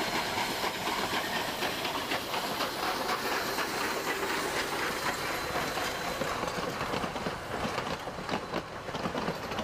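Durango & Silverton narrow-gauge steam train going by close at hand: the K-36 steam locomotive No. 486 passes with a steady steam hiss, then its tender and passenger coaches run past, with wheels clicking over the rail joints more plainly in the second half.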